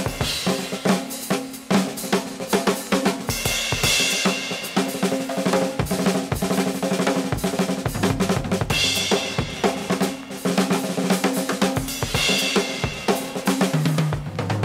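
Jazz playing from a vinyl record on a turntable, with the drum kit to the fore: snare, bass drum and cymbals over a bass line.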